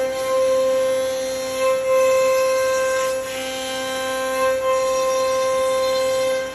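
CNC router spindle running with a steady high whine, cutting the wood boards, its loudness dipping slightly now and then.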